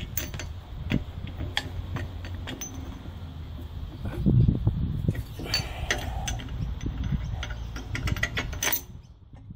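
Metal clicks and clinks of a bench grinder's grinding wheel and guard being handled as the wheel is worked loose and taken off its threaded shaft.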